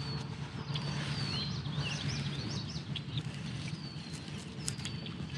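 Small birds chirping in a marsh: scattered short, high whistled chirps over a steady outdoor hiss, with a few faint clicks.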